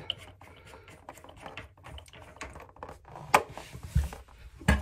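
Light plastic clicks and taps as the toilet fill valve's locknut is spun off the valve shank by hand under the tank. There is a sharper click a little past three seconds, a dull knock about four seconds in, and another sharp click near the end.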